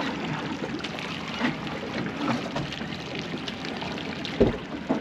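Water sloshing and splashing against a boat's hull, with one short thump about four and a half seconds in.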